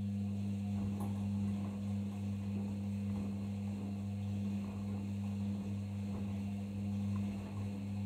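Arçelik 5083 washing machine taking in water: the inlet valve hums steadily under the sound of water rushing and splashing into the drum.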